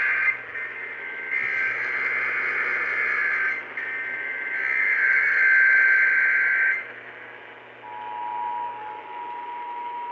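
Emergency Alert System tones received on AM radio. First come the harsh, buzzing digital header bursts, three of them, each about two to three seconds long. Then, about eight seconds in, the steady two-tone EAS attention signal starts, over a low radio hum.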